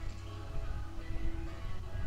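Background music with held notes over a steady low beat.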